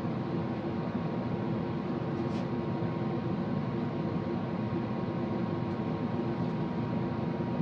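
Steady mechanical whir with a constant low hum, unchanging throughout, and a faint tick about two seconds in.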